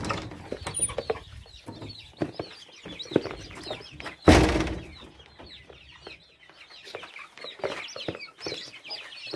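Hens clucking with many small chicks peeping in short high chirps. A metal door latch clatters at the start, and there is one loud thump about four seconds in.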